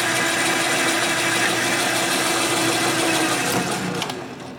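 Metal lathe running with its chuck spinning as it takes a light cut of about three thousandths on a test bar. It is a steady whir with a hum, which falls away sharply near the end as the lathe winds down.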